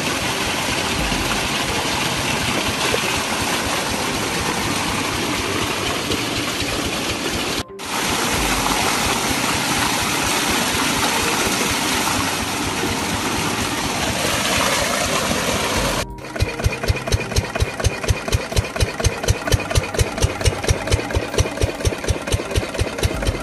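An irrigation pumpset's engine running under a loud, even rushing noise. After a cut about two-thirds of the way in, the engine thuds steadily at about four beats a second.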